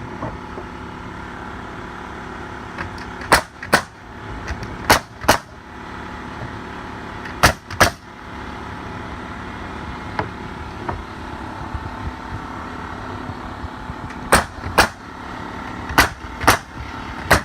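Sharp shots from a nail gun, mostly in quick pairs about half a second apart, with gaps of one to several seconds between the pairs. Each pair is typical of two nails driven into a fence board. A steady mechanical hum runs underneath.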